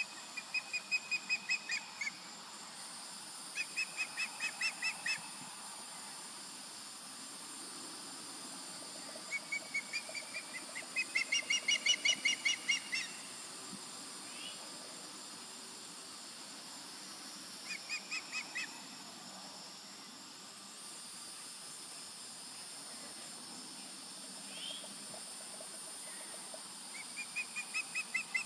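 Juvenile osprey calling: five bouts of rapid, high-pitched chirps repeated in quick series, the loudest and longest about eleven to thirteen seconds in, another starting near the end.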